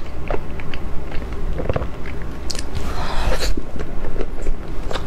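Mouth sounds of a person biting and chewing a soft chocolate-coated, cream-filled dessert: wet clicks and smacks, with a louder, noisier stretch about three seconds in.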